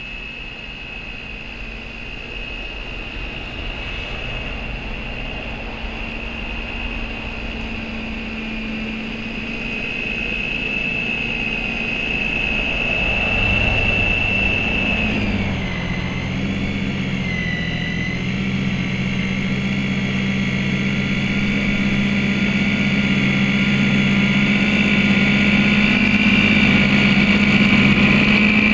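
Snow Joe corded electric snow thrower running as it throws snow, a steady high motor whine over a low hum, with a brief drop in pitch about halfway through. It grows steadily louder as it comes closer.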